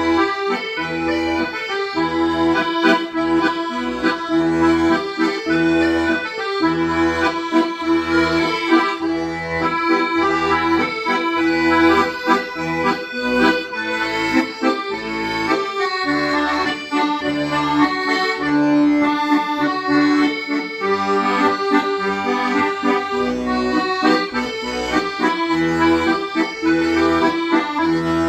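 Accordion playing a slow, song-like melody over a steady, rhythmic bass-and-chord accompaniment.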